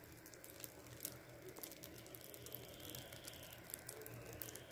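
Baghrir batter cooking on a hot pan: faint sizzling with many small scattered crackles as its bubbles open into holes.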